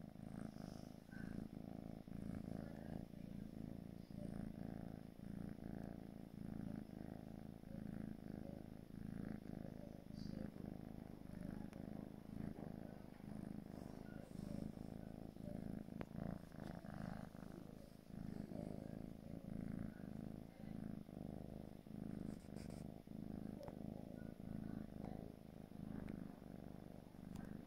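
Four-month-old British Shorthair kitten purring steadily close to the microphone, the purr swelling and easing with each breath.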